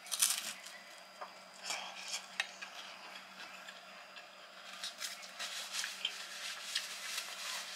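Close-up eating sounds: a bite into a piece of lasagna about a quarter-second in, then chewing with scattered small crunches, clicks and mouth smacks.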